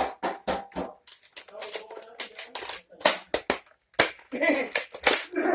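Toy Nerf foam-dart blasters being primed and fired: an irregular run of sharp clicks and snaps.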